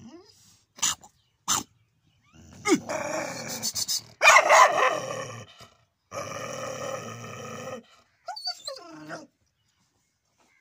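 A dog barking and calling out: two short barks, then two long drawn-out cries, the first the loudest, and a short falling cry near the end.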